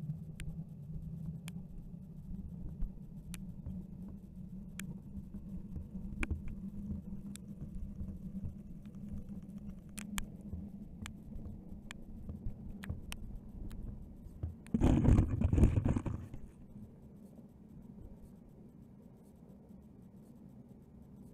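Homemade underwater camera box (dashcam sealed in a plastic food container) sinking through the water: a steady low rumble with scattered sharp clicks, then a loud burst of knocking noise lasting over a second as the box lands on the bottom, after which it is quieter.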